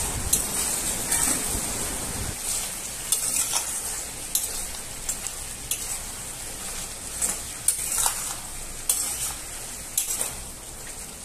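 A metal spatula stirring and scraping chicken masala in a steel kadai, clinking against the pan a dozen or so times at uneven intervals over a steady sizzle.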